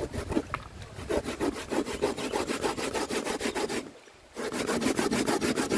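Fast rhythmic rasping strokes, about seven a second, like something being grated or sawn by hand; they stop for about half a second about four seconds in, then start again.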